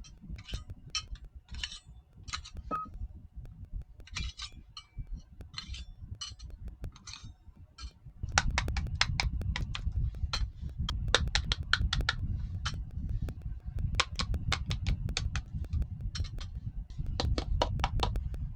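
Small toy kitchen pieces being handled: irregular light clicks and taps as they knock together and are set down. The clicks become denser and louder about eight seconds in, over a low handling rumble.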